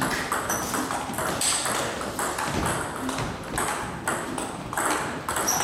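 Table tennis balls clicking sharply off bats and the table in a rally, a quick, irregular run of hits, with other rallies clicking in the background.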